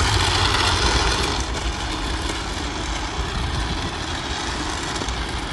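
Vehicle engine rumble and road noise from passing traffic, loudest at first and slowly fading.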